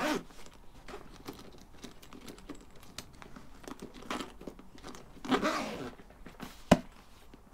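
Zip on a textile motorcycle tank bag being pulled closed in short scraping runs while the fabric is handled and rustles, with one sharp click near the end.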